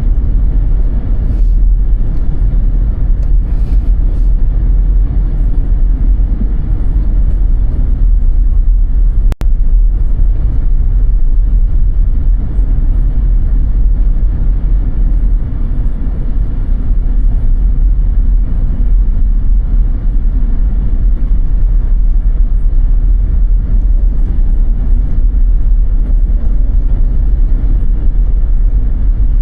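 Car driving: a steady low rumble of engine and road noise, with a momentary break in the sound about nine seconds in.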